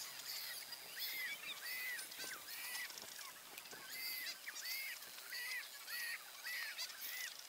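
Waterfowl calling: short repeated honks, about two a second, with a brief pause midway.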